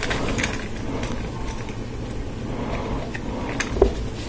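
Lego Technic parts and rubber pneumatic hoses being handled and pushed through pinholes: soft rubbing with a few light plastic clicks and one sharper knock near the end.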